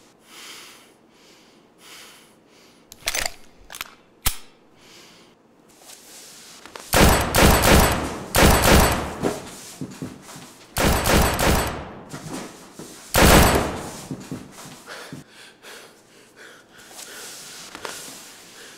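Gunfire: a couple of single shots, then several bursts of rapid shots between about seven and fourteen seconds in, each burst about a second long.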